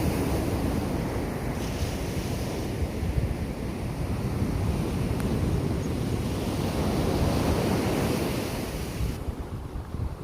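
Surf breaking on an ocean beach, with wind buffeting the microphone into a heavy low rumble.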